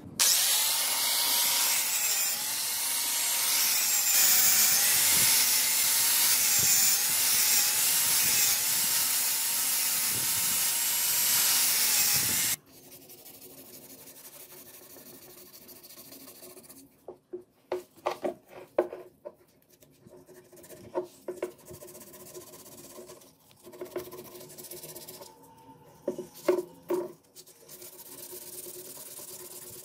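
A power tool runs loud with a wavering whine for about twelve seconds, then cuts off suddenly. After that comes quieter hand sanding: 400-grit sandpaper rubbed over a wooden sword grip, with short spells of quick strokes.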